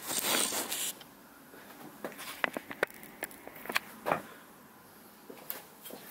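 A long aluminium ruler being handled and laid on a bare engine block deck to check it for flatness: a short scraping rush in the first second, then scattered light metallic clicks and taps.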